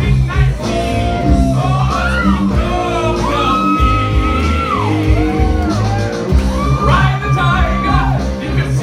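Live rock band playing: a male singer belts long, bending notes into a microphone over electric guitars and drums.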